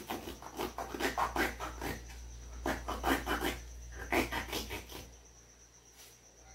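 Carton of sweetened condensed milk being opened by hand: quick scratchy rasps and tears of the cardboard in three short spells, stopping about five seconds in.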